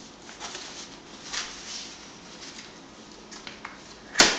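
Soft fabric rustling and handling of the padded toy arch of a Graco Contour Electra travel cot, then one sharp plastic click about four seconds in as the arch's end fitting snaps onto the cot's top rail.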